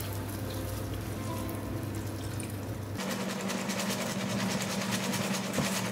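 Fish stock poured from a jug into a hot pan of seafood stew, a steady splashing pour. About three seconds in it cuts to the stew simmering, with fine crackling and bubbling.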